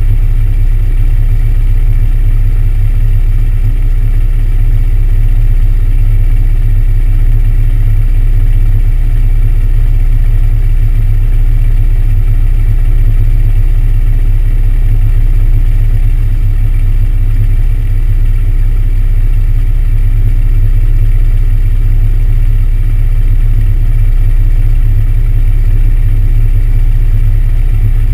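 Aircraft engine and propeller idling steadily with the plane standing still, heard deep and loud from a camera mounted on the wing.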